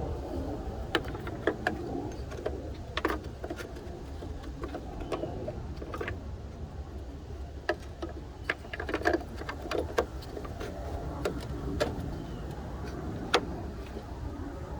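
Scattered small plastic clicks and taps from hands working a turn signal bulb and its socket in a Ford Mustang headlamp assembly, over a steady low background rumble.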